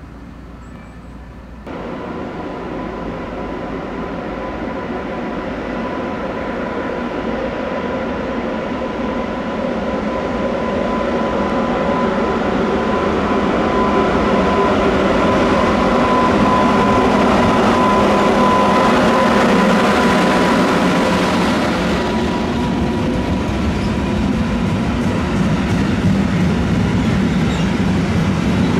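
Electric train running on the station tracks, its rolling noise starting abruptly a couple of seconds in and growing louder over about fifteen seconds, with a steady thin whine on top. It eases off slightly about twenty-two seconds in but keeps running.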